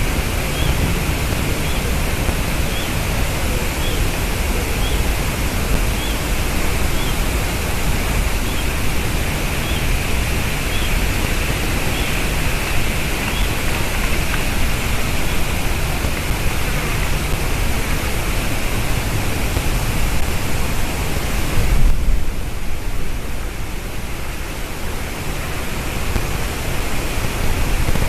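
Steady loud rushing noise, with a faint high call repeated about once a second through the first half; the hiss thins out in its upper range about three-quarters of the way through.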